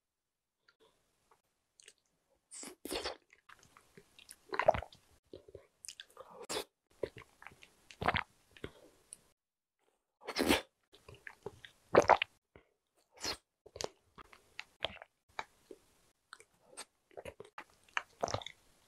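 Close-miked eating of pudding from a plastic cup with a metal spoon: sharp spoon clicks and scrapes against the cup between short bouts of wet chewing and lip sounds.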